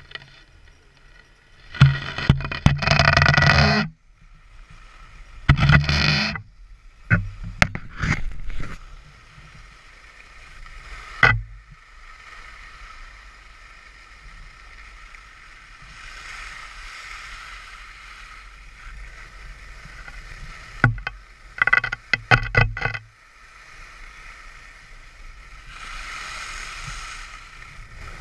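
Skis running over packed snow with a steady rushing hiss and wind on the helmet camera's microphone. Several loud bursts of scraping, rushing noise come from the ski edges biting into the snow in the turns or from gusts hitting the microphone.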